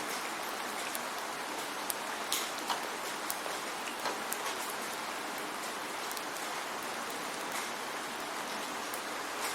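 Steady rain falling, a constant hiss with scattered individual drops plinking close by.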